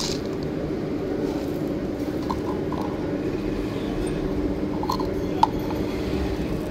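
Steady low mechanical hum, like an engine running, with a few faint short high blips and one sharp click about five and a half seconds in.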